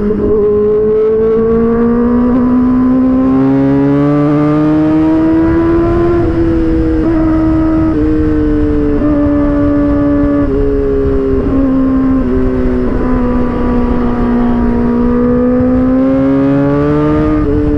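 Kawasaki ZX-4RR's 399 cc inline-four running at high revs under way, its high, steady note rising and falling slowly, with several small quick steps in pitch and a rush of wind underneath.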